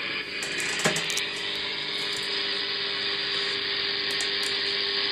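Steady hiss of radio static from an RTL-SDR software-defined radio receiver with an HF upconverter, with a single click about a second in.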